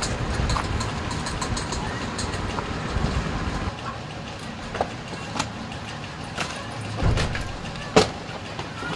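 Bangles and small boxes being handled and put away: scattered light clicks and clinks, the sharpest about eight seconds in. Under them runs a low steady rumble that eases off a little before halfway.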